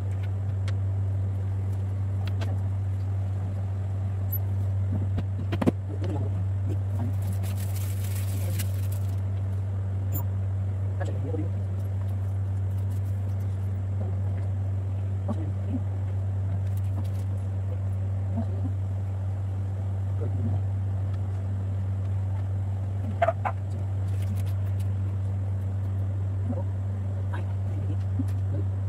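A steady low hum throughout, with scattered knocks and clicks from handling the panels and doors of a particleboard wardrobe cabinet being assembled; two sharp knocks stand out, about six seconds in and near the twenty-three second mark.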